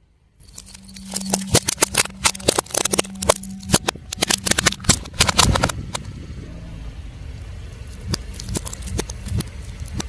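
A car tyre slowly rolling over and crushing crunchy objects: a quick run of sharp cracks and snaps over a low steady engine hum, thinning out to scattered cracks near the end.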